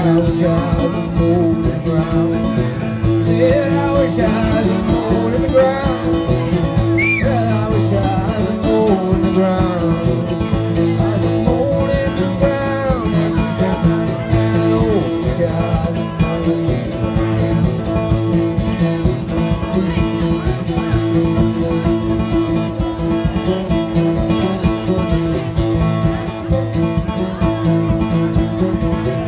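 Banjo picked in a driving, repeating old-time pattern with an acoustic guitar strumming along; a man sings a verse over it for about the first half, then the banjo and guitar carry on alone.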